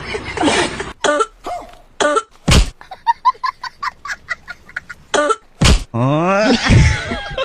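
A person's coughing fit: several harsh coughs that keep coming. Between them is a run of quick short pitched notes, and a rising pitched sound comes near the end.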